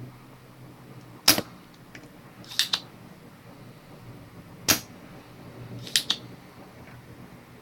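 Spring-loaded solder sucker (desoldering pump) being worked on the solder of a laptop DC jack's pins: two sharp snaps as the plunger fires, each followed about a second and a half later by a quick double click as it is pushed back down and re-cocked.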